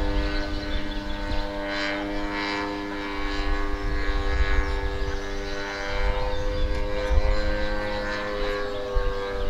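Gasoline engine and propeller of a giant-scale RC Piper J-3 Cub model flying overhead, a steady drone that swells and eases slightly in pitch.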